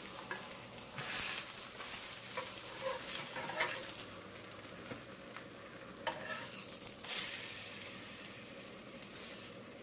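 Corn tortillas sizzling in a little oil in a nonstick frying pan, a steady hiss, while a metal spatula scrapes and taps the pan a few times as they are flipped and lifted out.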